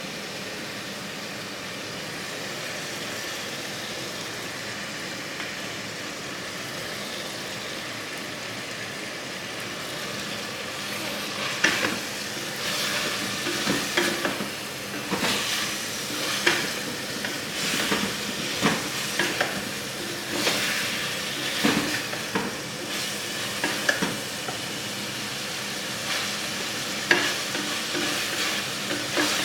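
Chicken and spice masala frying in a pan with a steady sizzle. From about a third of the way in, a spoon scrapes and clacks against the pan again and again as the mixture is stirred.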